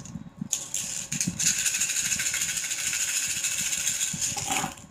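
Handful of cowrie shells shaken between cupped hands for a divination cast: a fast, continuous clatter, with a short louder clatter near the end as the shaking stops.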